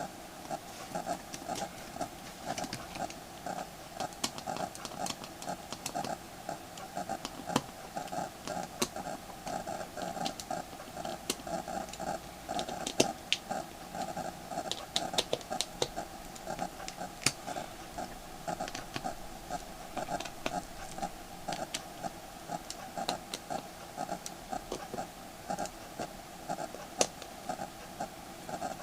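Small sharp clicks and taps, irregular and scattered throughout, from the plastic and metal parts of an LG G3 smartphone being handled and fitted back together during reassembly, over a steady low hum.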